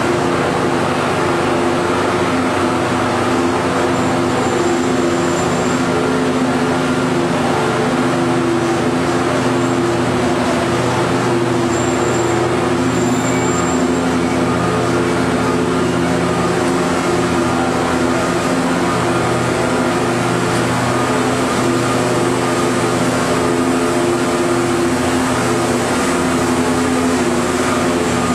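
Corrugated cardboard production line running: a steady machinery drone from the line's motors, rollers and belts, with several constant low hums under a wide noise.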